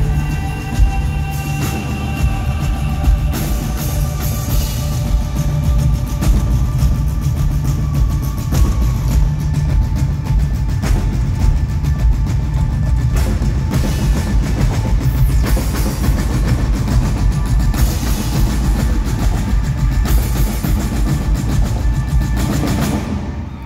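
Live band playing a drum-driven passage, with marching bass and snare drums beaten on top of a rock drum kit in a dense, steady rhythm; held tones sound under the drums for the first several seconds. The music stops shortly before the end.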